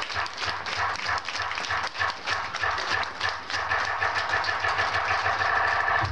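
Audience applauding and cheering over music with a steady bass line.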